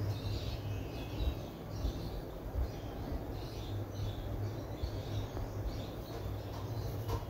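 Small birds chirping repeatedly in the background over a steady low hum, with a single click near the end.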